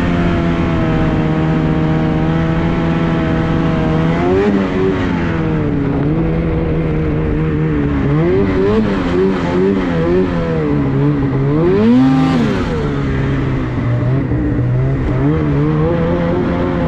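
Snowmobile engine running at a steady throttle. About eight seconds in the revs rise and fall several times in quick succession, and near twelve seconds there is one sharp rev up and back down before it settles again.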